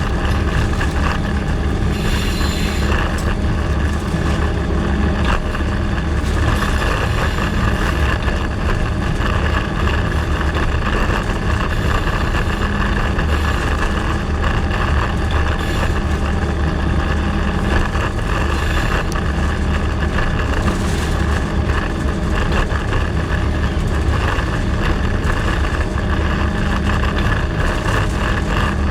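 Diesel locomotive working hard up a steep grade: a steady engine drone with wheel and rail noise that holds even throughout.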